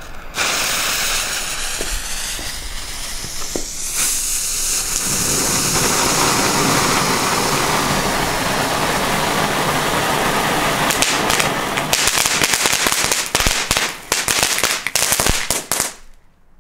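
Green Vulcano fountain, a small youth firework, hissing steadily as it sprays sparks, then giving way to a rapid run of crackling pops from about two-thirds of the way in, before it cuts off suddenly near the end.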